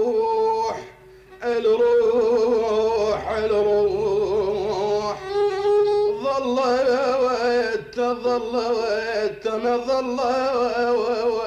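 Instrumental break in an Arabic song: a violin plays an ornamented melody with wavering vibrato over a steady accompaniment, pausing briefly about a second in.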